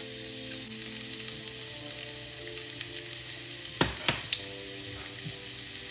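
Sliced garlic sizzling steadily in hot cooking oil in a frying pan. Two sharp knocks come about four seconds in.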